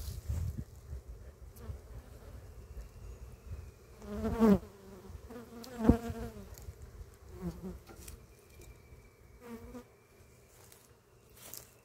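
Italian honey bees buzzing around an opened hive. Single bees fly close past, loudest about four and six seconds in and again more faintly later, each buzz swelling and fading with a bend in pitch.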